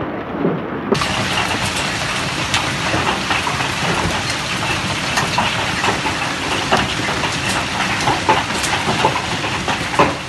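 Heavy hailstorm: large hailstones and rain coming down in a dense, steady noise, with many sharp knocks of hailstones striking hard surfaces. It starts fuller and louder about a second in.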